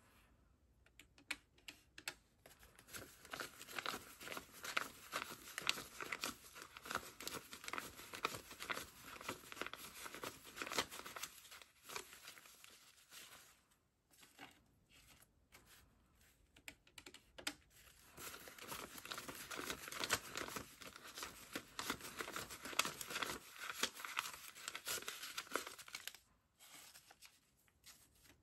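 Paper US dollar bills being counted and flicked through by hand, a dense rustling and crinkling in two long stretches, with a pause of a few seconds and some light taps between them.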